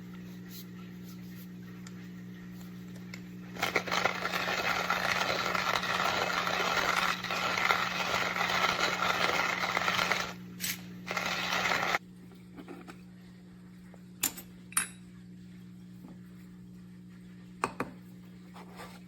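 Coffee beans rattling and crunching in a JavaPresse stainless steel hand grinder for about eight seconds, then stopping abruptly, followed by a few sharp clicks of the grinder being handled. A low steady hum runs underneath.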